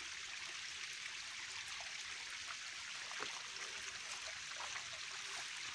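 Steady, fairly faint rush of flowing stream water, with a few faint ticks.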